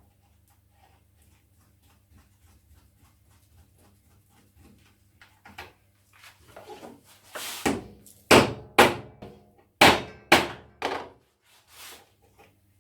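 Hammer blows on a wooden jig, tapping a pin into its hole: about six sharp knocks in a few seconds, after a stretch of faint handling ticks.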